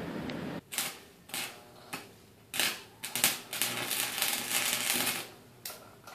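Arc welding with a small Campbell Hausfeld welder: the arc crackles and sputters in short bursts that start and stop, with a longer unbroken stretch of crackling in the middle.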